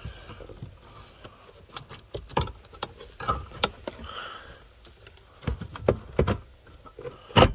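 Scattered clicks, taps and light rattles of hands working plastic trim, clips and wiring connectors while prising a control unit out from under a car dashboard, with a sharper knock near the end.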